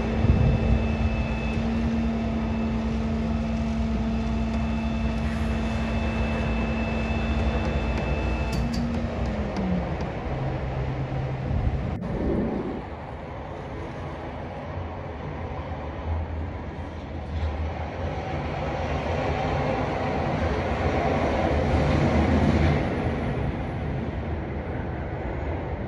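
Diesel engine of a New York City Sanitation (DSNY) salt-spreader truck running with a steady hum. The hum glides down in pitch about nine seconds in and holds lower. After a cut about halfway through, a broader rumble and hiss takes over and swells near the end.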